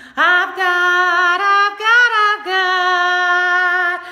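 A woman singing unaccompanied, drawing out long held notes between sung lines.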